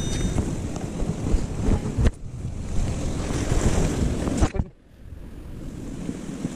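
Wind buffeting the microphone over sea waves washing against shore rocks, a heavy low rumble of noise. It drops away sharply about two seconds in, then falls much deeper for a moment about four and a half seconds in before coming back quieter.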